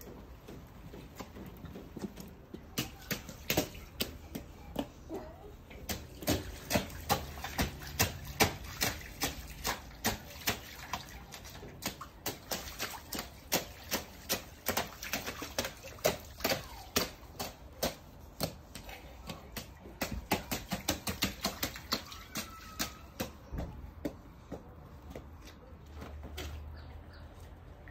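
Rubber wellington boots stamping and splashing through a shallow rainwater puddle on wet paving stones: a quick, uneven run of sharp splashes, a few each second, that starts a few seconds in and thins out near the end.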